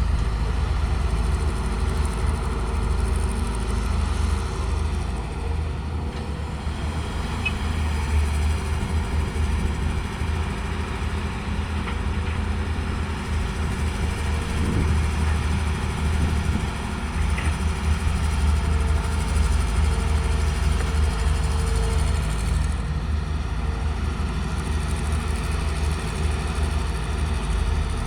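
Excavator's diesel engine running steadily with a deep low rumble.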